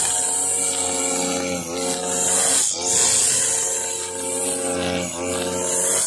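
Husqvarna 542RBS backpack brush cutter's two-stroke engine running at high speed while its 2.2 mm nylon trimmer line whirs through grass. The engine note dips briefly and picks up again about three times.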